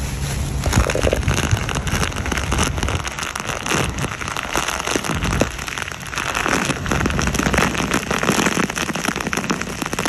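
Rain and wind-blown sea spray in a storm at sea: a loud, dense crackling hiss of drops striking, picking up a little under a second in.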